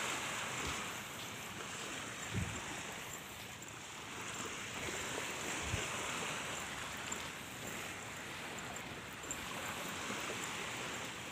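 Gentle surf washing onto a sandy beach: a steady hiss that swells and eases, with a few brief low bumps of wind or handling on the phone's microphone.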